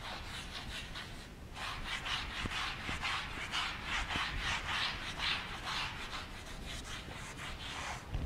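Chalk being wiped off a chalkboard with a duster in quick back-and-forth strokes, about three to four a second: a dry rasping rub, fainter at first and louder from about a second and a half in.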